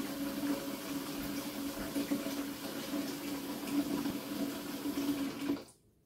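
Kitchen faucet running steadily into a plastic bucket, filling it; the tap is shut off and the water stops abruptly about five and a half seconds in.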